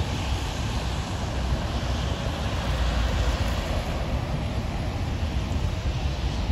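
Steady low rumble and hiss of road traffic and idling vehicles on a wet street.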